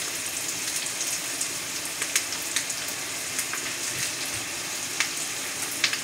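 Ribeye steak and baby bella mushrooms frying in butter in a hot pan: a steady sizzle with scattered crackles and pops.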